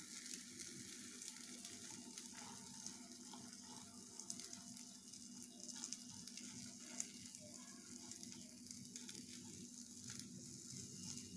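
Faint sizzle of rava uthappam batter cooking in a hot pan, with a few small ticks and a faint steady hum underneath.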